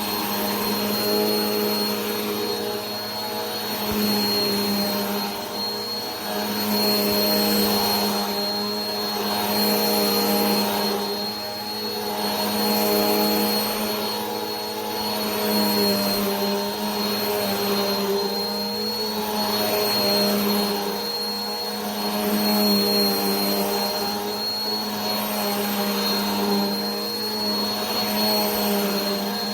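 Vacuum cleaner running continuously: a steady motor hum with a thin high whine over a rushing-air hiss, swelling and easing gently every two to three seconds.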